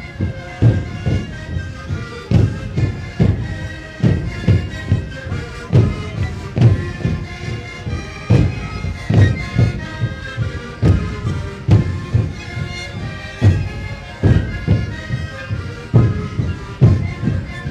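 A large sikuri ensemble playing: many sikus (Andean panpipes) blowing a melody together in a breathy, reedy chorus over a steady beat of bombo bass drums.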